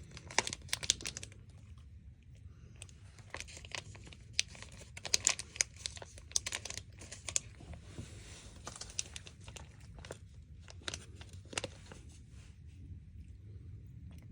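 Plastic snack packet crinkling and rustling in bursts of sharp crackles, with brief pauses between them and only faint ticks in the last couple of seconds.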